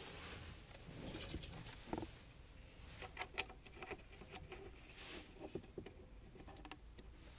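Faint clicks and light handling knocks of a hand pushing an SD card adapter into the SD card slot of a car's glove-box media unit.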